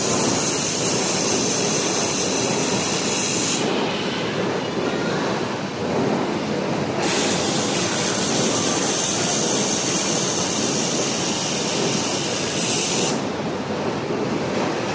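Laser welding machine running: a steady mechanical noise, with a high hiss on top that cuts out about four seconds in, returns about seven seconds in, and cuts out again near the end.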